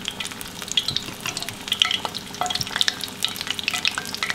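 Battered fish strip frying in hot oil in a skillet: a steady sizzle full of small, irregular crackling pops.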